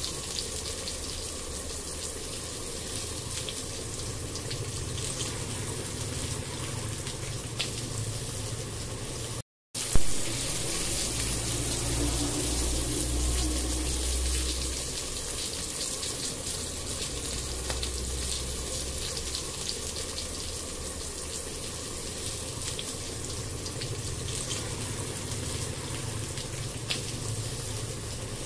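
Tomato-onion masala sizzling in hot oil in a nonstick kadai, with light ticks and scrapes from a wooden spatula stirring it, over a low steady hum. About ten seconds in the sound cuts out briefly and comes back with a sudden loud knock.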